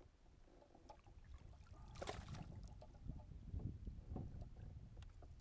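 Water lapping around a kayak and low wind rumble on the camera microphone, with a short burst of splashy noise about two seconds in and a few faint clicks.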